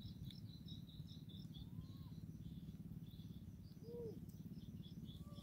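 Faint open-air ambience by the water: a steady low rumble with quick high chirps from small birds or insects throughout, and two short rising-then-falling calls about two and four seconds in.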